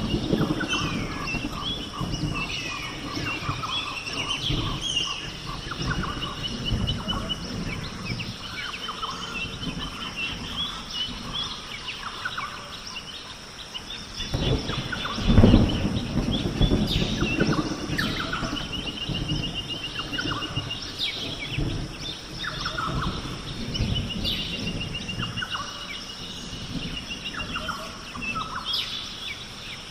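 Jungle ambience: birds and other animals calling, with rapid pulsed trills repeating throughout. Low rolls of thunder rumble underneath, loudest about halfway through.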